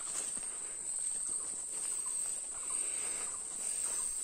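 Steady high-pitched buzz of insects in forest, with faint rustles and steps of someone walking through the undergrowth.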